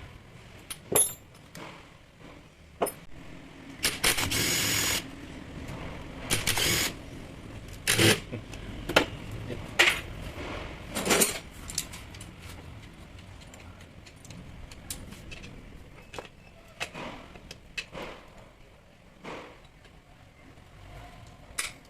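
Metal parts and hand tools clinking and knocking during rotary hammer disassembly, with two short scraping noises about four and six and a half seconds in.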